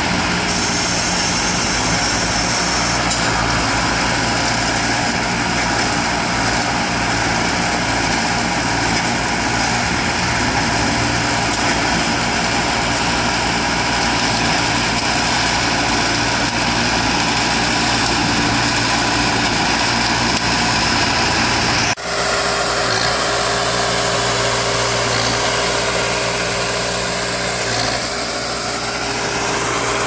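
Diesel machinery engine running steadily under work. About three-quarters of the way through it breaks off for an instant and carries on with a slightly different tone.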